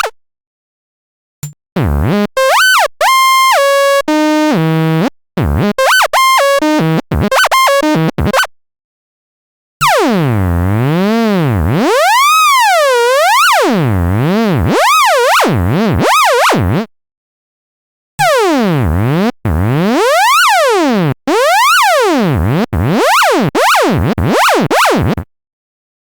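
Synthesized tones made by turning a traced symbol outline into a waveform, a sonified Fourier epicycle drawing. First come short buzzy tones that jump between pitches, split by brief silences. Then one continuous tone sweeps slowly up and down in pitch, and near the end quick rising-and-falling sweeps repeat with short gaps.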